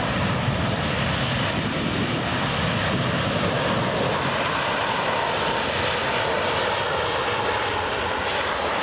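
Qatar Airways Airbus A380's four Engine Alliance GP7200 jet engines running as the airliner rolls past along the runway. A steady, loud jet noise with a deep rumble underneath and a whine that drops slightly in pitch in the second half.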